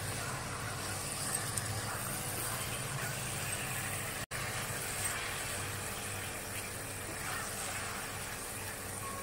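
Paneer and shredded vegetables frying in a nonstick wok, a steady sizzle as a wooden spatula stirs and turns them, with a low steady hum underneath. The sound drops out for an instant a little over four seconds in.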